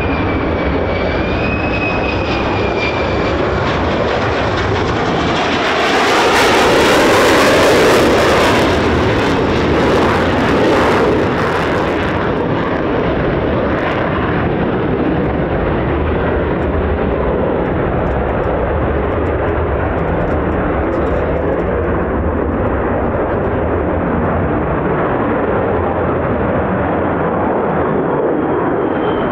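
Military fighter jet engines running through low passes: a constant jet roar that swells to a loud crackling peak between about six and eleven seconds in. A thin engine whine wavers in pitch at the start and slides downward near the end.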